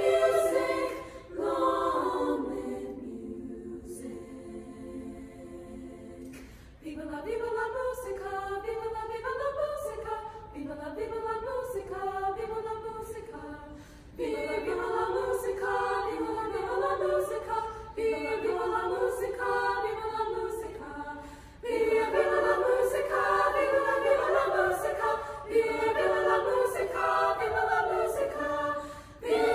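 A girls' choir singing in several parts, apparently unaccompanied. A few seconds in, the voices drop to a soft held chord, then come back fuller, growing louder about halfway through and again about two-thirds through.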